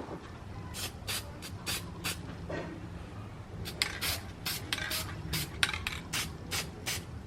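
Aerosol spray-paint can sprayed in many short hissing bursts, two or three a second, with a pause of about a second and a half partway through.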